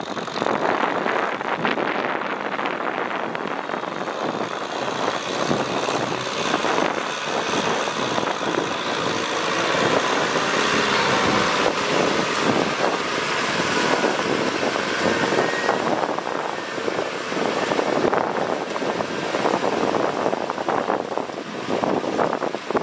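Kubota M6040 tractor's diesel engine running under load while its rear rotary tiller churns through wet paddy mud, a steady dense rush of noise that grows somewhat louder around the middle.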